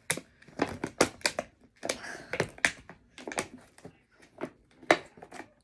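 Plastic packaging on a small bottle being picked at and torn open by hand: an irregular run of sharp clicks and crinkles, with a longer crinkle about two seconds in.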